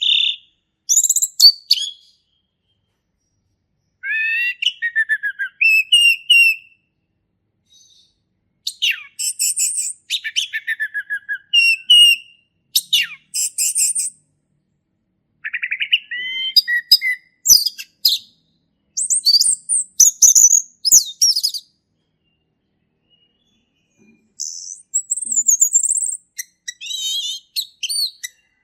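Male orange-headed thrush singing in bouts of quickly varied, clear whistled phrases, with pauses of a second or two between bouts: the full 'ngeplong' song.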